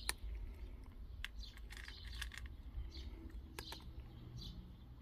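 A cat eating dry kibble from a stainless steel bowl: faint, irregular crunches and clicks a few times a second.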